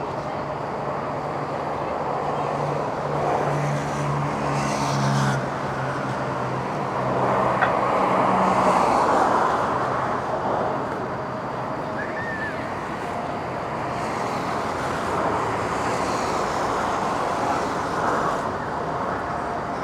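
Steady road traffic noise, with vehicles swelling past one after another. A low engine drone sits under it for the first half.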